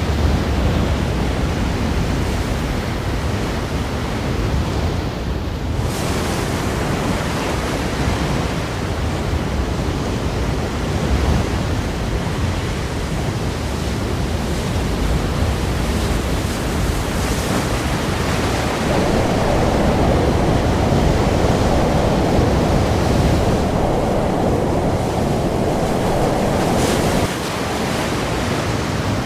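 Ocean surf breaking against rocks, a continuous rushing wash of waves that swells fuller for several seconds before falling back abruptly near the end.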